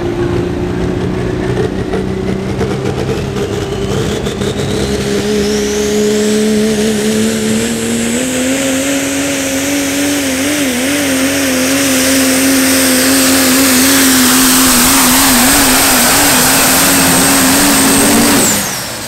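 Super stock diesel pulling truck running at full load through a pull. The engine climbs slowly in pitch, with a turbocharger whine that rises steeply over the first several seconds and then holds high and steady as the sound grows louder. The engine pitch wavers briefly about ten seconds in. Near the end the engine is let off and the sound drops away suddenly.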